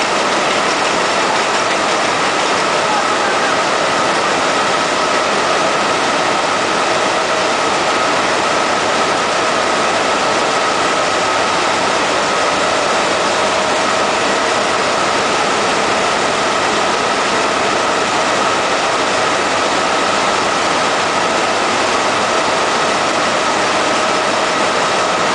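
Velvet tape needle loom running at production speed: a steady, unbroken mechanical din with a constant high tone running through it.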